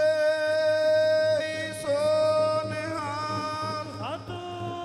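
Man singing a Sikh devotional chant: a long steady held note that breaks off about a second and a half in, then shorter wavering notes and a quick upward slide near the end.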